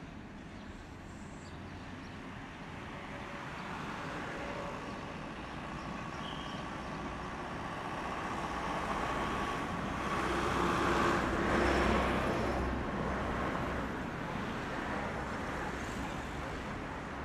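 Loaded freight hopper cars rolling slowly past on the rails, their wheels making a steady rolling rumble that swells to its loudest about two-thirds of the way through. Faint thin steady tones run through the middle.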